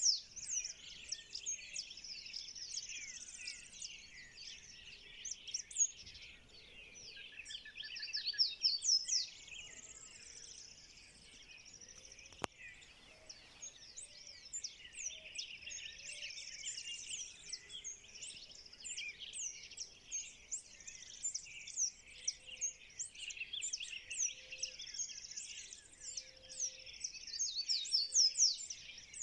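Dawn chorus of many birds singing and calling at once: dense overlapping chirps and trills with no break.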